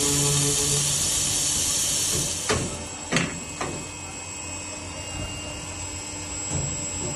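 Automatic disc cold saw's circular blade cutting through a solid round steel bar with a loud, steady hiss. About two seconds in the cut ends and the noise drops, followed by three sharp clicks and quieter steady machine running, with a small knock near the end.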